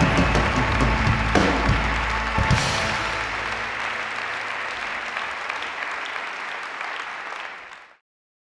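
A large audience applauding while the band's music plays, the music dropping out about two and a half seconds in. The applause then fades away and cuts off to silence near the end.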